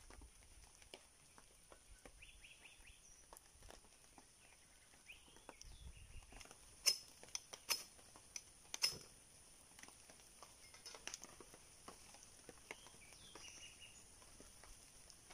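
Three sharp scraping strikes, a little under a second apart, of a knife on a fire-starter rod to throw sparks onto tinder. Under them, faint patter of drizzle and a few short bird chirps.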